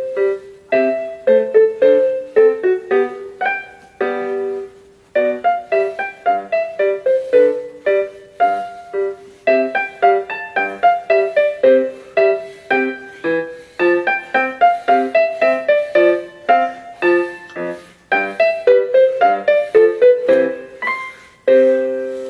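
Casio electronic keyboard playing one of its built-in song-bank pieces in a piano voice, a quick melody over chords with crisp separate notes. Near the end the piece settles on a held chord that starts to fade.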